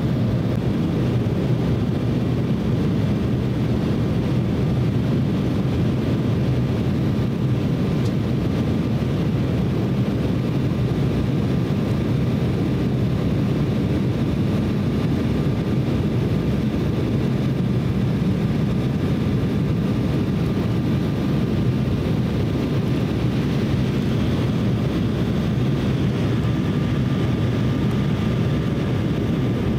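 Steady cabin noise inside an Embraer E170 jetliner in flight: a low rumble of its GE CF34 turbofans and rushing air, with a faint thin steady whine.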